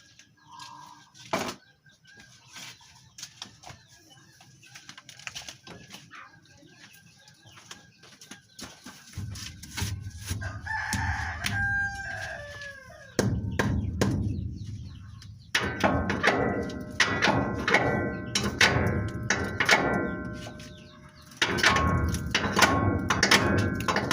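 A rooster crows about halfway through. Then, in the last third, rapid repeated metallic strikes ring out over a low rumble, like metal being hammered.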